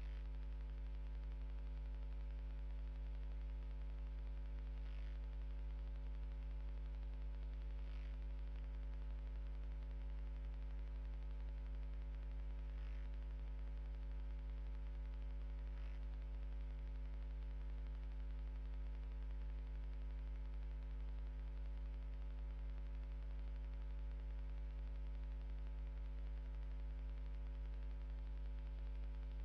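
Steady electrical mains hum with a ladder of overtones and a faint hiss, picked up on a CCTV camera's audio line. A few faint, short, high chirps come now and then.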